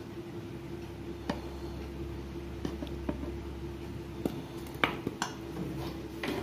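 Metal spoon stirring dry flour in a stainless steel bowl, with scattered clinks and knocks against the bowl's side; the loudest knock comes a little before five seconds in.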